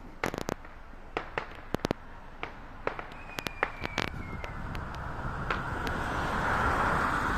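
Fireworks going off: scattered sharp bangs and crackles at irregular intervals, with a thin, slightly falling whistle about three seconds in and a hiss that builds through the second half.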